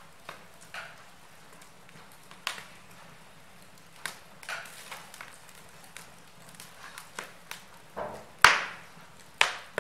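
Wood fire burning in a fireplace, crackling with irregular sharp pops and snaps, the loudest two near the end.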